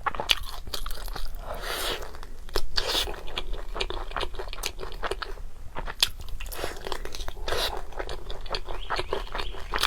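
A person chewing crunchy fried food close to the microphone: a steady run of sharp, crisp crunches and bites.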